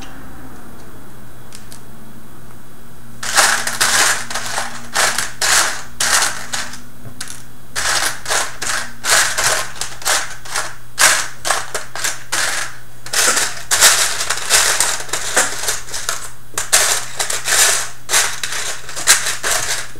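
Small plastic construction-kit parts clicking and clattering as a hand rummages through the parts box, in quick irregular bursts starting about three seconds in, over a steady low hum.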